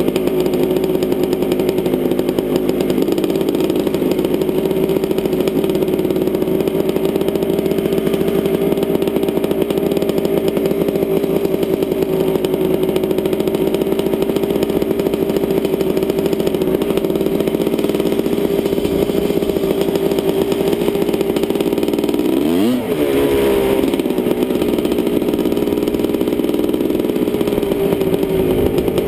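Helicopter running loud and steady with a fast, even beat. Near the end its tone briefly sweeps down and back up.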